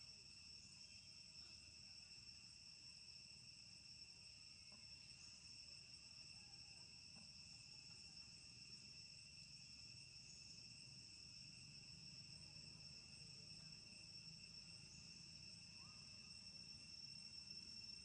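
Faint, steady insect drone: a continuous high whine at two pitches that never breaks, with a faint low rumble beneath.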